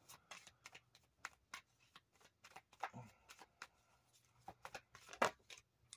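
A deck of tarot cards being shuffled by hand: faint, irregular card clicks and snaps, with one louder snap about five seconds in.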